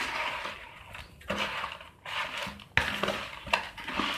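A spoon stirring and tossing oiled, spice-coated raw mango pieces in a plastic bowl: a series of wet scraping strokes, with a couple of sharp knocks in the second half.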